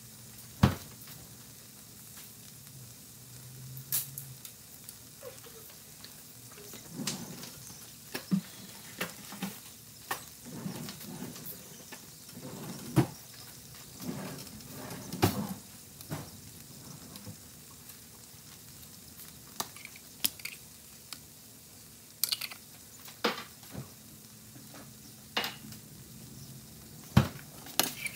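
Chicken and bell peppers frying in a stainless steel skillet: a faint steady sizzle broken by scattered sharp pops and clicks, with a metal spatula working the pan near the end.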